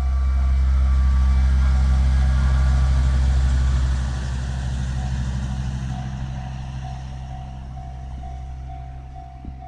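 MCR600 railway snow-removal motor car passing over a level crossing. Its engine drone is loudest for about the first four seconds and then fades as it moves away. The crossing alarm dings repeatedly, about twice a second, and comes through clearly again once the engine noise drops.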